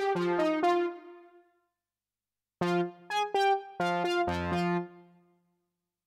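D16 Group LUSH-101 software synthesizer playing brass presets: a short phrase of synth-brass notes and chords that dies away about a second and a half in, then after a one-second pause a second phrase that fades out near the end.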